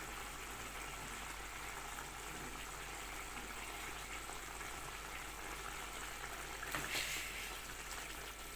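Chicken simmering in a little water in a covered pan, a steady soft bubbling hiss, with a brief louder rush about seven seconds in.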